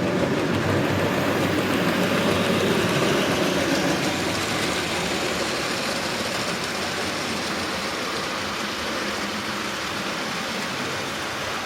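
Model locomotive running on track: a steady rumble of wheels and motor that slowly fades.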